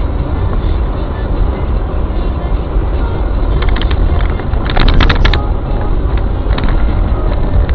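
Steady low rumble of a car's engine and road noise heard from inside the moving car, with a brief run of sharp clicks about halfway through.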